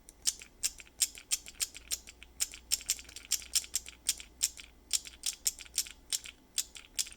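A 3D-printed magnetic key switch pressed repeatedly, about three to four clicks a second. On each press a steel washer flies up and smacks into the switch, then makes a softer let-go sound on release.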